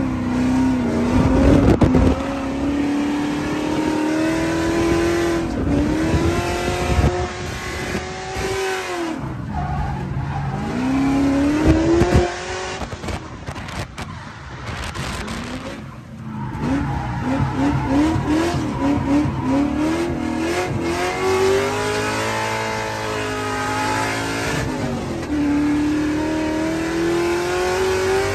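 Drift car engine held at high revs, its pitch climbing steadily for several seconds, falling away and climbing again, with a quick bouncing of revs partway through, over tyres squealing.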